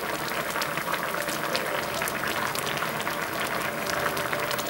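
Pot of budae-jjigae (spicy sausage stew) boiling: a steady, dense bubbling with many small pops.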